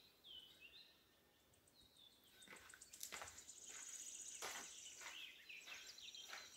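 Near silence with faint bird chirps: short high notes in the first second. Then, from about two and a half seconds in, a thin high steady trill comes in, with a few soft knocks.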